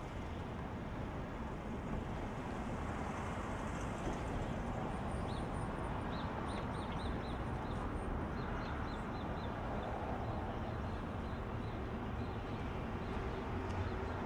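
Steady city street traffic noise, with a small bird chirping in a quick series of short high notes, about three a second, from about five to nine seconds in.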